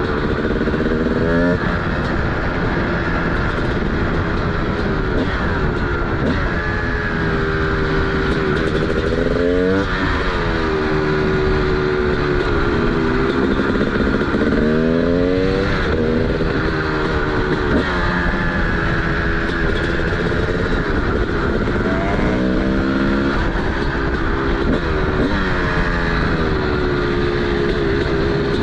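TM SMR 300 two-stroke single-cylinder engine, with a DBR exhaust, under way through curves. Its pitch climbs again and again on acceleration, with breaks as it shifts, and falls back off the throttle.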